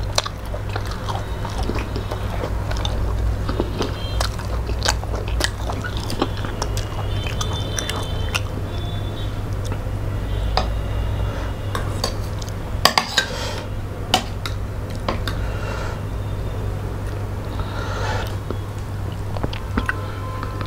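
Close-miked chewing and mouth sounds of two people eating rice and curry by hand, with fingers working the food on steel plates and occasional clinks of a steel spoon against a plate, sharpest about two-thirds of the way through. A steady low hum lies underneath.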